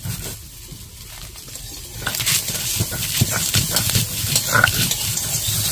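Stone roller rubbed back and forth on a ridged stone grinding slab (shil-nora), dry-grinding roasted whole spices into powder with a rough, grating scrape; the strokes grow louder about two seconds in.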